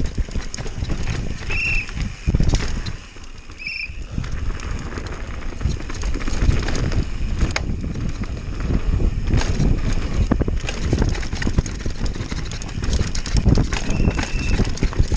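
Downhill mountain bike racing down a rough dirt trail: constant rattling and knocking of the bike over bumps and roots, with tyre and wind rumble. A short high tone cuts in twice early on and once, longer, near the end.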